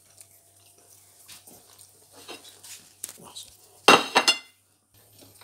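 Porcelain plates being handled on a counter: faint knocks and scrapes, then one loud ringing clink of china about four seconds in.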